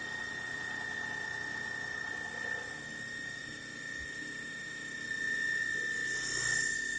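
CNC milling machine cutting a roughing pass: a steady high-pitched whine from the spindle and cutter over a constant hiss, a little louder in the last couple of seconds.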